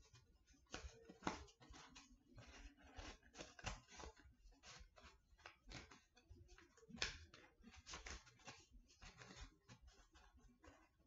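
Faint, irregular rustling and crinkling of paper strips being handled and woven over and under through a paper weaving mat.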